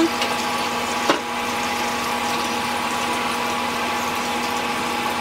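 Electric toothbrush buzzing steadily while teeth are brushed: a constant hum over a hiss, with one light knock about a second in.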